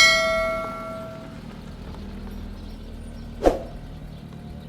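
A sharp metallic strike that rings with a clear tone and dies away over about a second and a half, then a single sharp knock with a short ring about three and a half seconds in, over a low steady rumble.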